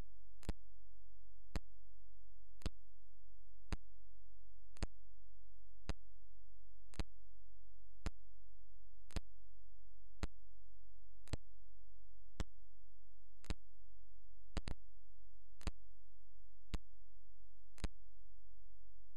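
Sharp single clicks, evenly spaced about once a second with one doubled click near the end, over a constant low hum.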